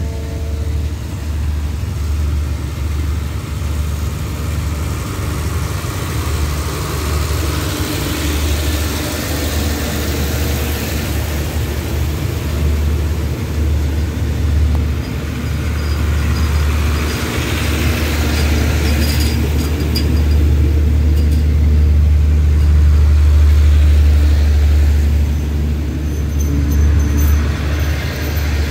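Passenger coaches of an express train rolling past on the rails as it pulls out of the station: a steady low rumble with a broad hiss of wheels on track, swelling toward the middle. Thin high wheel squeaks come near the end.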